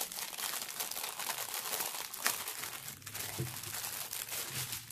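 Clear plastic bag of diamond-painting drill packets crinkling continuously as it is handled and opened.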